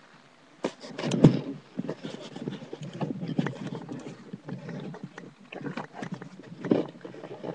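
Irregular rustling, scuffing and knocks close to the microphone as the camera is moved low through grass and dry stems. The noise starts abruptly less than a second in, after a faint hiss.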